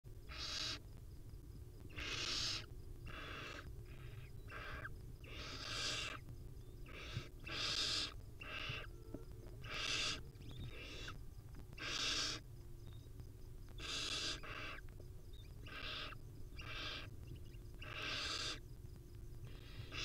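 Barn owl nestlings' raspy hissing calls, the chicks' food-begging 'snoring', repeated about once a second, some longer and louder than others.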